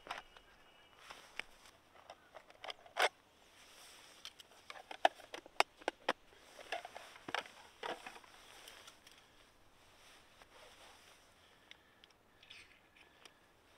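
Camping gear being handled by gloved hands: a string of sharp clicks, knocks and scrapes, busiest in the middle, then only faint rustling.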